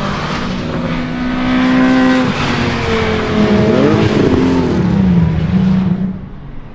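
Petrol racing car engines passing on a circuit at speed. The engine note climbs under acceleration, drops about two seconds in, then several engine notes cross and bend downward as cars sweep past. The sound falls away sharply near the end.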